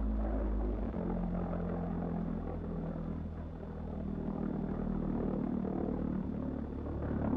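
Low, steady droning buzz of a V-1 flying bomb's pulse-jet engine in flight, its tone shifting about a second in.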